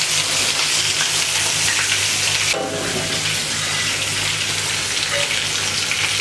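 Oil sizzling steadily as masala-coated pearl spot fish (karimeen) fry in coconut oil in a pan.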